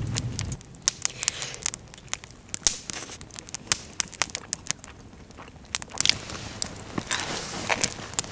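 Close crunching and chewing of crispy old-style fried chicken: a string of sharp, irregular crackles and crunches.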